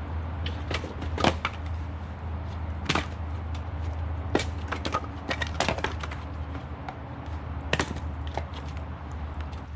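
Split firewood being tossed onto a pile: hollow wood-on-wood knocks come irregularly, every second or two, over a steady low hum.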